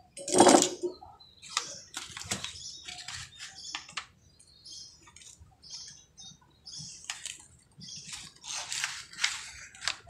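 Rustling and clatter as a monitor's power-supply circuit board is handled and lifted out of its metal chassis over a sheet of paper. It is loudest in a sudden rustle about half a second in, with small knocks and scrapes after. Small birds chirp in the background.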